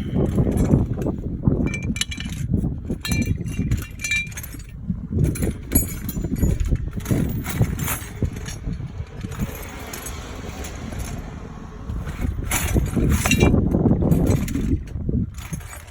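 Handling and rustling noise while working at the car, with scattered clicks and a few light metallic clinks of hand tools, mostly two to four seconds in.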